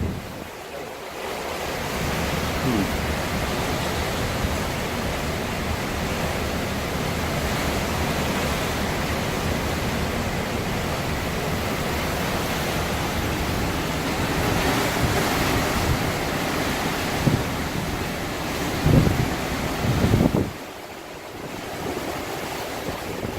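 Hurricane-force wind blowing hard and steadily, a dense rushing noise with gusts buffeting the microphone near the end; the level drops sharply about twenty seconds in.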